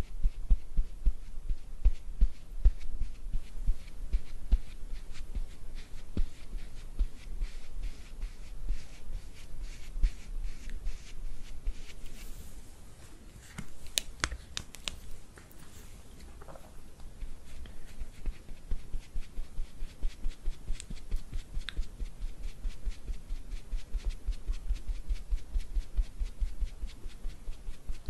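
Many quick, irregular clicks and taps over soft low thuds. They thin out a little past halfway and then pick up again.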